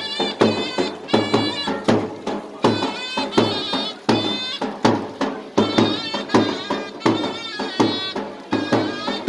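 Turkish folk wedding music: a shrill double-reed zurna playing a lively melody over steady strokes of a davul bass drum, a couple of beats a second.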